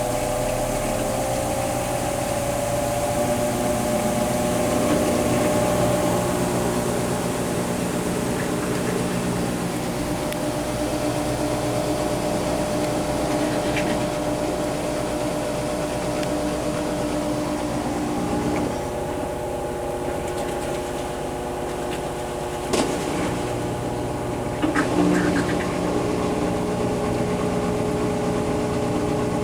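Kenmore Series 500 high-efficiency washing machine spinning: a steady motor hum and whine of several tones, rising slightly at the start and stepping to new pitches about 5 and 18 seconds in. Two short sharp knocks near the end.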